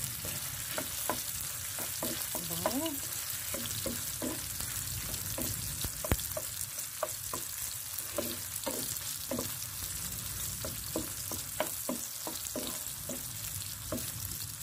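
Garlic and sliced hot dog sizzling in hot oil in a pan, with a steady hiss. A spatula stirs the food, scraping and tapping against the pan in many short knocks, with one sharper click about six seconds in.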